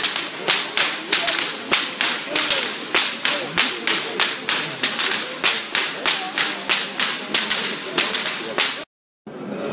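A whip cracked overhead in a fast, steady rhythm of sharp cracks, about three to four a second, with crowd voices underneath.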